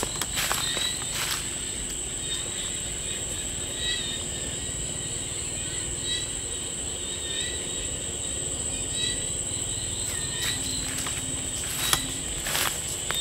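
Night insects trilling steadily in one high, unbroken note, with short chirps every second or two. Footsteps crunch on dry leaves and twigs near the start and again near the end.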